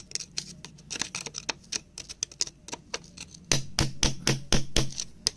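Rapid, irregular clicks and taps of hard objects, with a run of louder knocks about three and a half seconds in.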